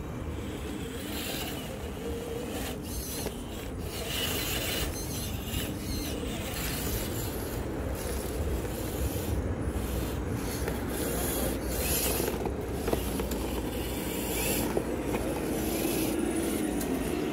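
A motor running with a whine that rises and falls in pitch, over a low rumble and gritty scraping and crunching.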